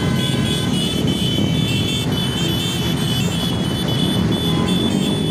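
Several motorcycle engines running together in a moving convoy, with steady rumble and wind noise on the microphone of a bike in motion, and a thin high whine over it.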